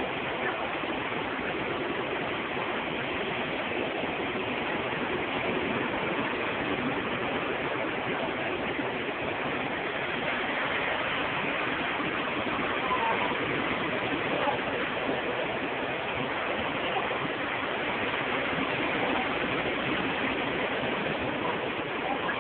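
Steady, even rush of ocean surf breaking on a beach.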